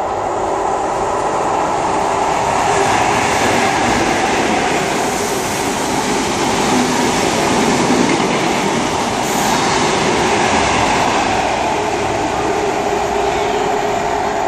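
A Great Western Railway InterCity 125 (HST), hauled by Class 43 diesel power cars, running through the station at speed without stopping: the rumble of wheels on rail and diesel power-car noise, building over the first few seconds and then holding steady and loud.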